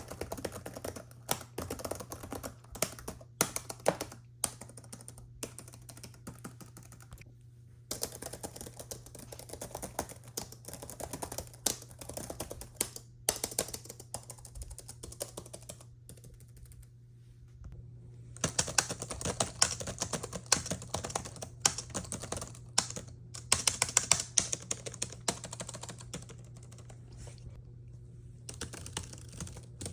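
Typing on a laptop keyboard: fast runs of key clicks broken by short pauses. After a pause about 18 seconds in, the clicks turn brighter and crisper over a faint steady hum.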